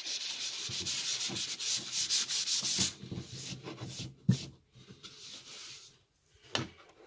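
Hand-sanding a wooden board with an old sheet of fine sandpaper, about 320 grit, in quick back-and-forth strokes. The strokes stop about three seconds in, followed by a hand brushing the board off and a couple of short knocks.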